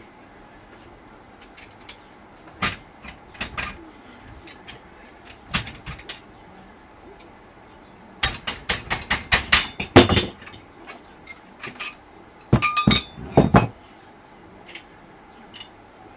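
Metal clanks and knocks from a manual tyre-fitting tool and the wheel rim as a motorcycle tyre's bead is levered onto the rim: scattered single knocks, then a quick run of clanks about eight seconds in and another short burst near the end.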